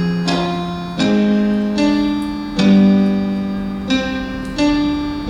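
Piano accompaniment for a song, playing a slow instrumental passage between sung lines. It strikes a chord about every second, and each chord rings and fades.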